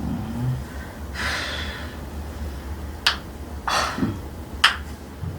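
A breath out, then a few sharp joint cracks in quick succession as a chiropractor manipulates the client's spine or joints. The last crack is the loudest.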